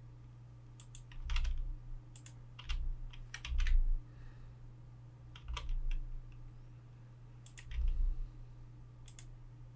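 Computer keyboard keys and mouse buttons clicking in small scattered clusters with pauses between, some strokes carrying a dull knock. A steady low electrical hum runs underneath.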